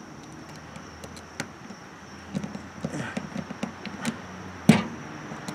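Utility knife scoring and trimming a slot in the plastic lower valance (splash guard) of a 2013 Ram 1500: small irregular scrapes and clicks, with one louder sharp click near the end.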